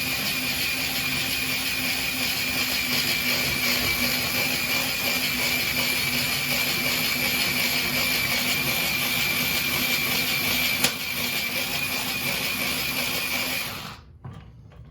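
4-volt cordless screwdriver, about 200 RPM, spinning the cable of a Tacklife HGD02A drain auger: a steady whir with a constant whine. There is a single click about 11 seconds in, and the motor stops shortly before the end.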